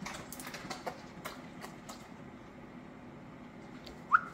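A Rhodesian Ridgeback waiting for a treat gives a single short, high, rising whine near the end, over a few soft ticks and a faint low hum.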